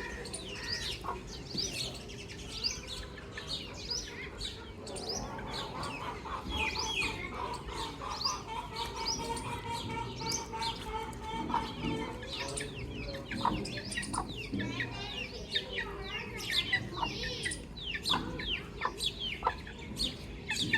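A brood of chicks peeping constantly, many short, falling chirps overlapping, with chickens clucking beneath them.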